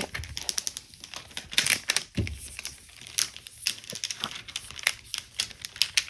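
Thick clear plastic cover sheet on a diamond painting canvas crinkling and crackling in quick, irregular snaps as hands press and smooth it flat, with a soft thump about two seconds in.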